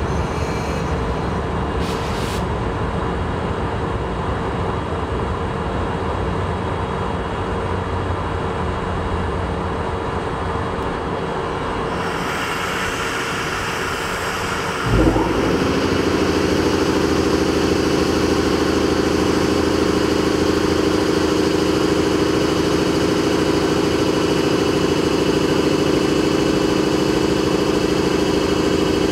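EF64 electric locomotive standing with its auxiliary machinery humming steadily. About halfway through, its blower starts with a thump and settles into a louder, steady drone.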